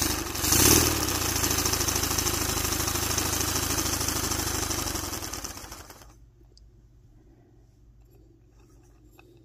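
Paper twin-cylinder boxer air engine running on breath blown into it: a fast, even clatter of the paper pistons and slide valves with rushing air. It runs about six seconds, then dies away.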